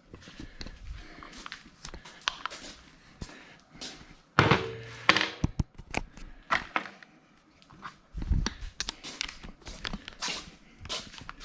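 Hand tools clicking and clinking on a car battery terminal clamp as a new terminal is fitted and its bolt tightened, with irregular sharp knocks. The loudest clunks come about four to five seconds in.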